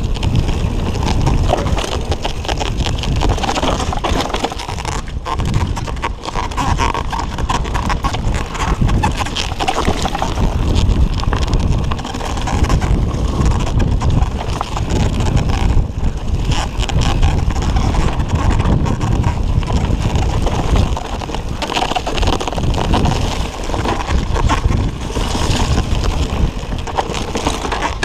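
Mountain bike riding fast down a dirt forest trail, heard close up: steady rumble of wind on the microphone and tyres on dirt, with frequent knocks and rattles from the bike over the rough ground.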